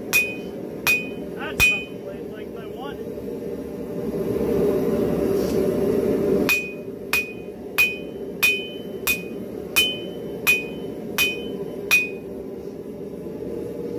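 Hand hammer striking hot spring steel held in tongs on an anvil, each blow giving a short metallic ring. Three blows near the start, a pause of about five seconds, then a steady run of nine blows at about one and a half a second. A steady low rushing noise runs underneath.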